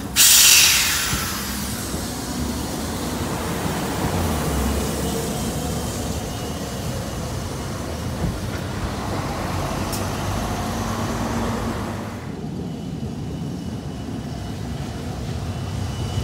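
Hiroshima Electric Railway 800-series tram, with Mitsubishi armature-chopper control, running along street track amid road traffic noise. A loud hissing burst comes right at the start and fades within about a second.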